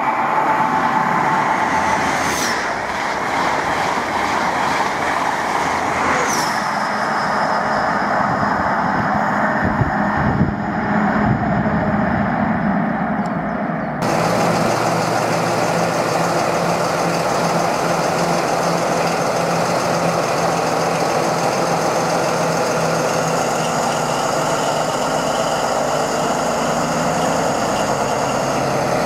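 Intercity 125 (HST) power car passing through a station at speed, engine and wheels on the rails. About halfway the sound changes to a Paxman VP185 diesel of an East Midlands HST power car running steadily as it moves slowly along a platform, with a high whine over the engine note.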